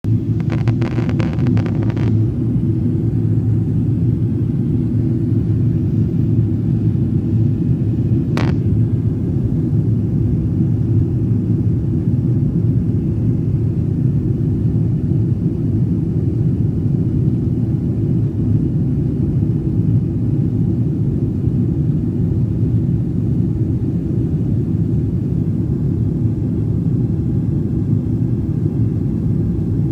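Steady low rumble of a jet airliner's cabin in flight, the drone of its turbofan engines and airflow heard from inside. A single sharp click comes about eight seconds in.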